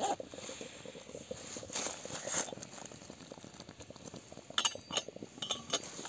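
Wood fire crackling in the firebox of a wood-fired samovar, with a few sharp clicks close together about four and a half to five and a half seconds in.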